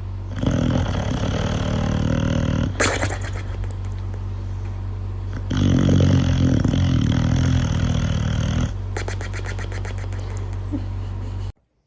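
A pet animal making two long calls, each two to three seconds, over a steady low hum, with bursts of rapid clicking between them; the sound cuts off abruptly near the end.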